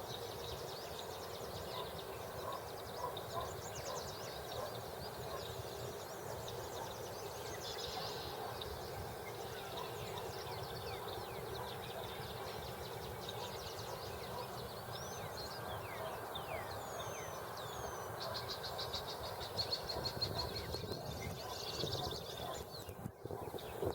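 Several species of songbird singing and calling at once in an open field, a mix of short chirps, down-slurred whistles and rapid trills, with a dense buzzy trill a little after the middle. A steady low hum runs underneath.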